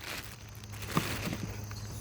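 A low steady hum, with a few faint clicks and light rustle from engine parts being handled.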